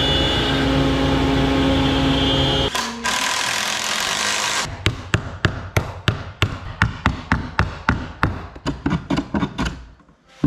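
A CNC router spindle running steadily while cutting plywood, with a steady hum and whine, until it stops about two and a half seconds in. A short stretch of rushing noise follows. Then comes a rapid run of sharp taps on wood, about five a second, which fades out near the end.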